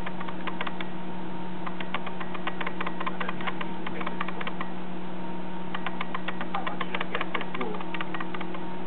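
Steady electrical hum with rapid, irregular ticking: the recording noise of a small photo camera's built-in microphone.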